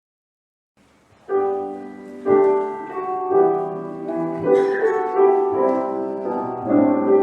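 Silence, then a piano comes in about a second in, playing a hymn introduction in slow, ringing chords.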